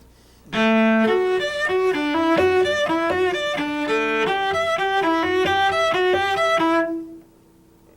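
Solo cello playing a quick, even passage of separate notes, starting about half a second in and stopping shortly before the end.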